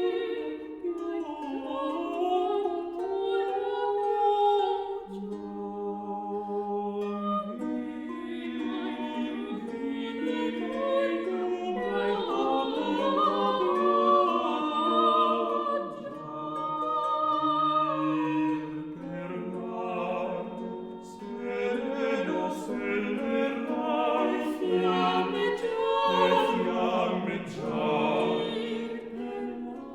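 Renaissance Italian madrigal sung by a four-voice vocal ensemble, the parts moving together in interweaving polyphony.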